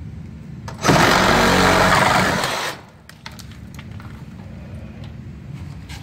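Reciprocating saw with a metal-cutting blade running for about two seconds, slicing through the nails between a wall stud and the bottom plate; it starts about a second in and stops abruptly with the cut through.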